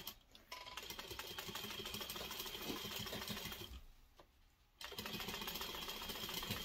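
Juki industrial sewing machine running, stitching long basting stitches through layered fabric and batting with a quick, even rhythm and a steady high whine. It stops for about a second around the middle, then starts stitching again.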